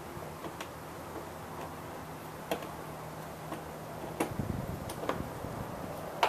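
Scattered light clicks and ticks of a hand tool against plastic and metal as the floor panel's screws are worked out of a Honda Metropolitan scooter, a few clicks a second or two apart with a brief low rumble of handling about four seconds in. A faint steady hum runs underneath.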